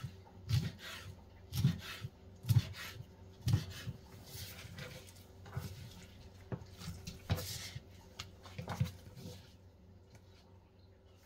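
Kitchen knife slicing honeycomb tripe on a bamboo cutting board: the blade knocks on the wood about once a second at first, then in smaller, irregular taps that die away near the end.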